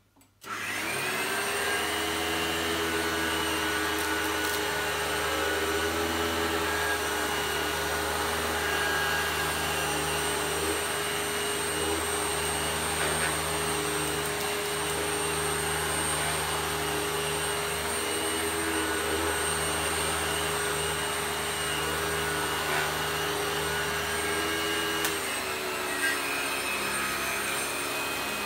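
National MC663G 670-watt vacuum cleaner switched on, its motor spinning up and then running steadily with a whining hum, the note shifting near the end. The owner says its motor bearings need oiling.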